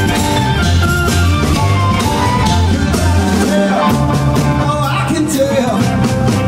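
Live blues band playing, a harmonica held to a microphone taking the lead with sustained, bending notes over electric guitar, keyboard and a steady bass line.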